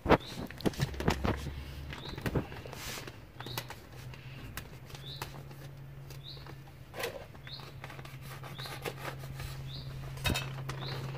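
Scissors cutting open a plastic bag of potting soil, with snips, clicks and crinkling of the thick plastic as it is handled. A bird gives short chirps about once a second, and a low steady hum comes in a few seconds in.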